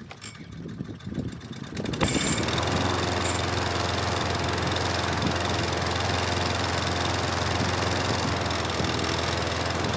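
Briggs & Stratton 650E series single-cylinder four-stroke lawn mower engine cold-starting on full throttle/choke: it catches about two seconds in and then runs steadily.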